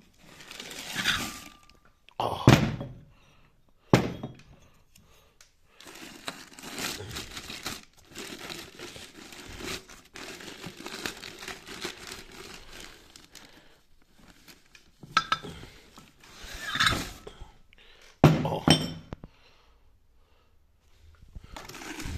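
Plastic bags crinkling and cardboard boxes rustling as pistons are unpacked from Zetor repair-kit boxes, with three sharp knocks of heavy parts being set down or bumped: about two and a half seconds in, about four seconds in, and again near eighteen seconds.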